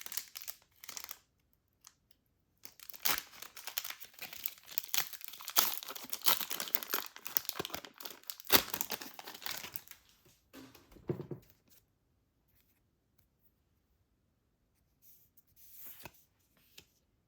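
Trading-card blister pack packaging being torn open and crinkled by hand for several seconds, with a sharp snap about eight and a half seconds in. It then goes quiet apart from a few soft rustles near the end.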